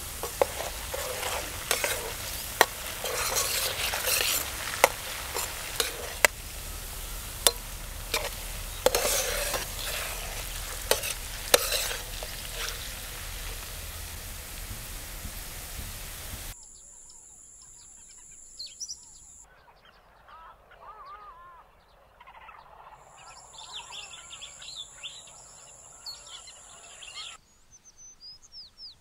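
Diced potatoes sizzling in hot oil in a frying pan, while a metal ladle stirs them and clinks against the pan a dozen or so times. About halfway through the sizzling cuts off, and small birds chirp over quieter outdoor background.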